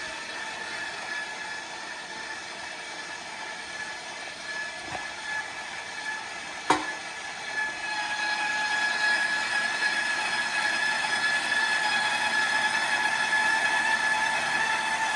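KitchenAid stand mixer motor running steadily, driving a grater attachment as cheese is pushed through it; a steady whine with a single sharp click a little past the middle, getting louder about eight seconds in.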